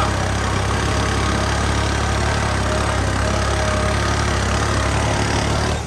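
New Holland 3630 tractor's three-cylinder diesel engine running steadily, with a strong low hum; right at the end the sound suddenly drops much quieter.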